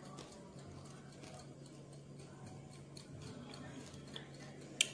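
Quiet room tone: a low steady hum with scattered faint ticks, and one sharp click near the end.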